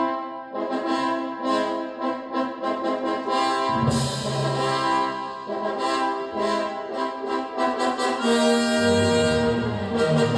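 Orchestral film music played through Fyne Audio F701 loudspeakers driven by a McIntosh MA252 amplifier and picked up by a phone in the room. Brass plays short repeated fanfare notes, then about four seconds in the full orchestra enters more loudly with broad held chords, and lower brass joins near the end.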